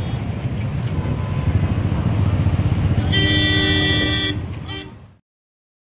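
Engines of a packed crowd of motorcycles, many of them Royal Enfields, running with a steady low rumble, while a vehicle horn honks for about a second around three seconds in. The sound then fades and cuts to silence a little after five seconds.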